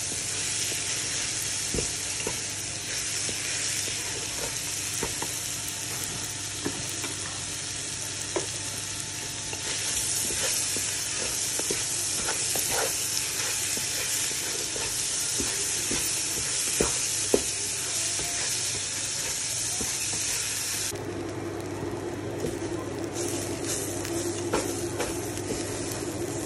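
Grated carrot and rice sizzling in oil in a non-stick frying pan while being stirred with a spatula, with scattered clicks and scrapes of the spatula against the pan. About three quarters of the way through, the sizzle suddenly drops and a low steady hum comes in.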